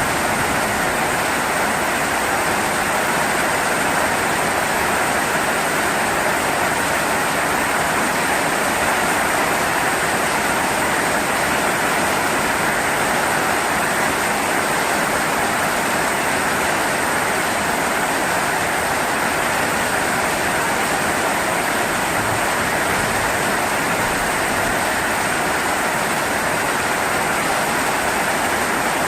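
Steady rainfall, an even hiss without break or change.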